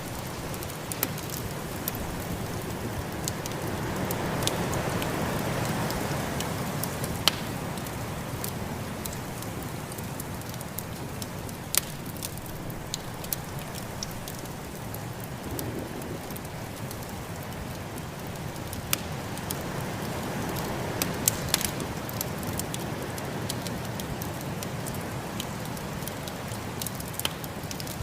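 Wood fire crackling with scattered sharp pops, over a steady rushing of snowstorm wind that swells twice, about a few seconds in and again past the middle.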